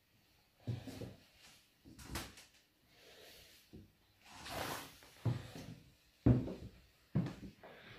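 Interior doors being opened and bumped: a run of irregular knocks and thumps about a second apart, the loudest about six seconds in, with a longer rustling swell about four and a half seconds in.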